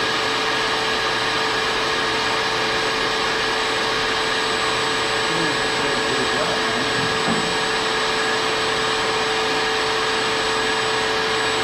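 Shop vacuum running steadily, a constant motor whine over rushing air, serving as dust collection for a band saw.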